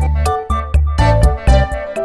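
Background music with a steady beat, about two beats a second, and keyboard-like melody notes.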